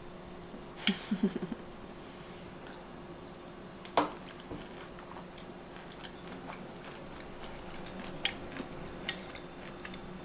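A metal spoon clinking against a ceramic cereal bowl of oats and muesli, four sharp clinks spread out with quiet between them.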